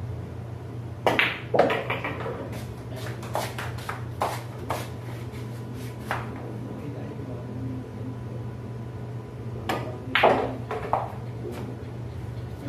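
Pool balls clacking during play: a cue strikes the cue ball about a second in, followed by a run of sharp clicks as balls hit each other and the rails. A second shot with more ball clicks comes about three-quarters of the way through. A steady low hum runs underneath.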